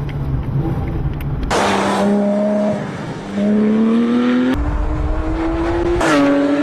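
Porsche 911 GT3 (997.2) 3.8-litre flat-six engine on its stock exhaust, pulling hard under acceleration: the note rises steadily, drops briefly about three seconds in, then climbs again, with a sudden jump in the sound near the end.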